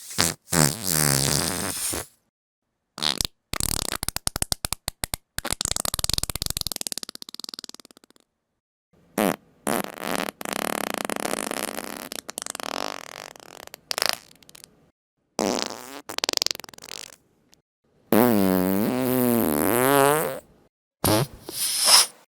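A run of juicy farts, about seven in all, separated by short silences. Some are long with a wobbling pitch, the longest near the end; one a few seconds in is a rapid sputtering rattle.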